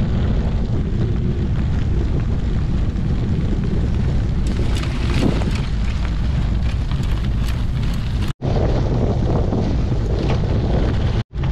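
Wind buffeting an action camera's microphone while a gravel bike rides fast over a loose gravel road, with the rumble and crackle of the tyres on the stones. The sound drops out for an instant twice in the last few seconds.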